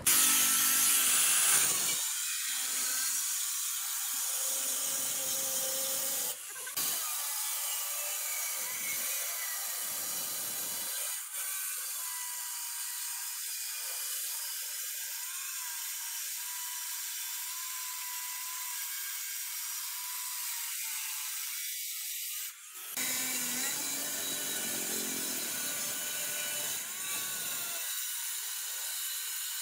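Angle grinder with a sanding disc grinding and smoothing the cut edge of a granite countertop: a steady high hiss of abrasive on stone over the motor's whine, loudest in the first couple of seconds and dipping briefly a few times.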